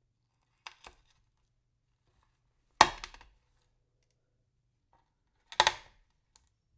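Pills being crushed: light clicks, then two sharp cracks about three seconds apart, each trailing off in a brief crunch.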